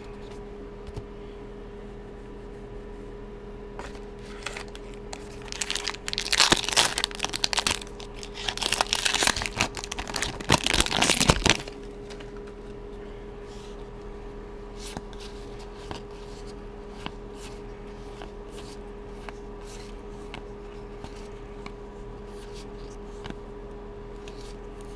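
A Magic: The Gathering booster pack's foil wrapper being torn open and crinkled for about six seconds, starting about five seconds in, then the soft clicks of the trading cards being handled, over a low steady hum.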